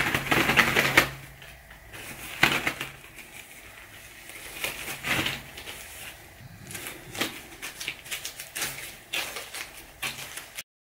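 Disposable rubber gloves being pulled on and stretched over the hands: rubbery rustling and snapping, loudest in the first second, then scattered shorter rustles, cutting off suddenly near the end.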